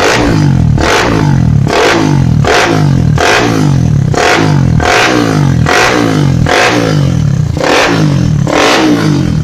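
Four-stroke motorcycle engine, a Suzuki Satria FU, revved in quick repeated throttle blips about every 0.8 seconds, each rising sharply and falling back. It runs through a stock muffler whose silencer baffle has been altered to give a road-race exhaust sound.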